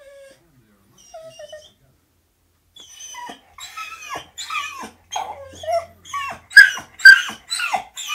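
Staffordshire bull terrier whining and yelping in excitement at dogs on the television: a faint whine, a short pause, then a rapid run of high-pitched yelping cries that grow louder.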